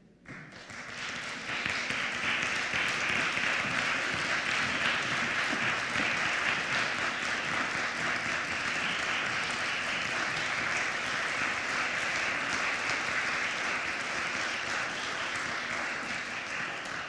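Audience applause, building over the first second or two, holding steady, then dying away near the end.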